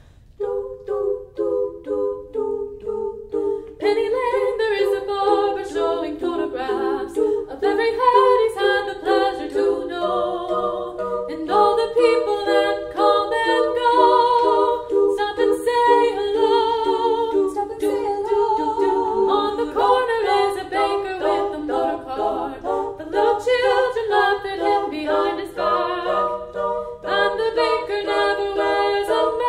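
Women's vocal quartet singing a cappella in close harmony. It opens with fewer voices about half a second in, and the full four-part harmony comes in about four seconds in.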